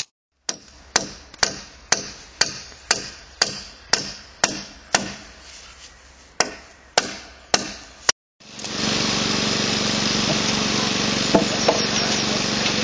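Hammer blows on a wooden log-pole frame, about two sharp strikes a second, some fourteen in all with a short pause about halfway. After a cut, a steady loud rushing noise takes over for the last few seconds.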